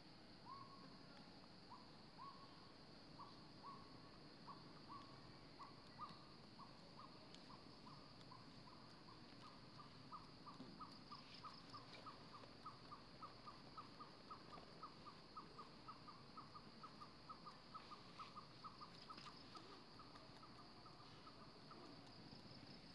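Faint bird call, owl-like: a long series of short hooting notes, spaced out at first, then coming faster and rising slightly in pitch before stopping near the end. A steady high insect drone runs underneath.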